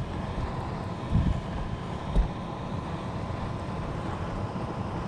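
Steady rushing rumble of an air handler's blower running on emergency heat, with two brief knocks about one and two seconds in.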